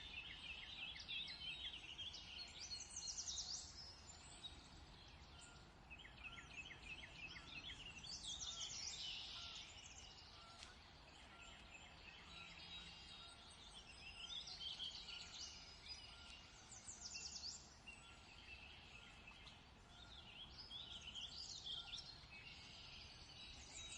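Faint chorus of songbirds: several birds chirping and trilling in short, overlapping phrases, over a faint low background rumble.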